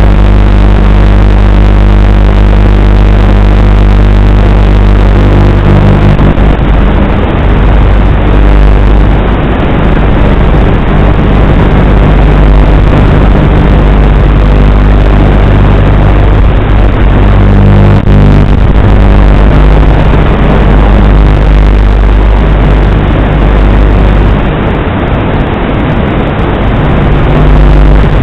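Strong wind blasting the microphone, loud and distorted, with a steady low drone through the first six seconds or so.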